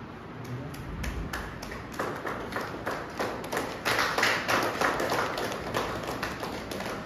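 A group of people clapping: scattered claps that fill out into steady applause about two seconds in, then ease off near the end.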